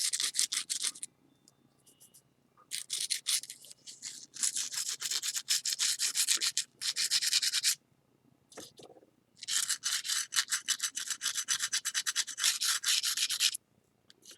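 240-grit sandpaper rubbed in rapid, short back-and-forth strokes over cured urushi lacquer on a ceramic plate's kintsugi repair, taking off the excess. It comes in three spells, with short pauses after the first and second.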